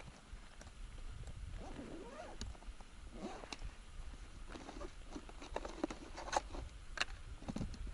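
Faint scattered clicks and knocks of fishing gear being handled, with the sharpest two near the end, over a steady low wind rumble on the microphone. A few short rising and falling tones sound faintly in the first half.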